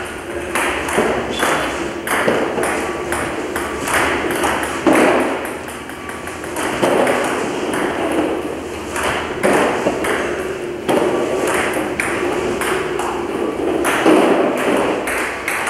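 Table tennis rally: the ping-pong ball clicking off the bats and the tabletop in a quick, even rhythm, a few hits a second.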